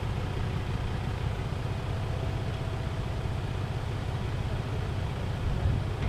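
A four-wheel-drive vehicle's engine running steadily while a ute stuck on a sand mound is being recovered.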